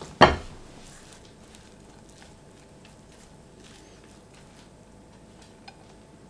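A metal pan knocks down once onto a cloth-covered wooden board, the loudest sound, just after the start. Then a silicone spatula stirs and scoops cooked quinoa in the pan with faint soft scrapes, squishes and small clicks.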